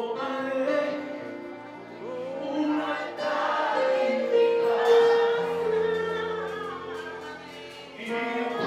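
Gospel worship music: a man singing into a handheld microphone over long held chords, with other voices singing along.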